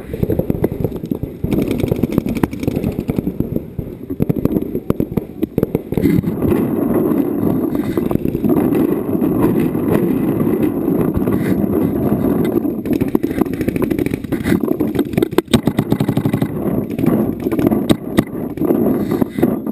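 Paintball markers firing, rapid strings of sharp pops over a steady dull rumble.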